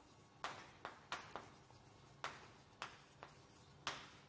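Chalk writing on a chalkboard: about eight short, faint strokes and taps with gaps between them as the letters are written.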